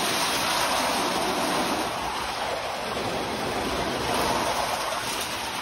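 Heavy rain in a steady downpour, heard from inside a van.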